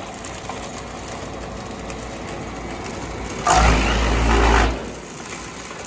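Disc wood chipper running steadily, then about three and a half seconds in a loud, noisy burst lasting just over a second as material is fed through and chipped, before it settles back to its running sound.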